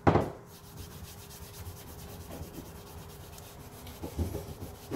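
Gloved hands rubbing an oil-and-wax finish into a wooden axe handle: a steady scratchy rubbing of glove on wood, with a sharp knock right at the start.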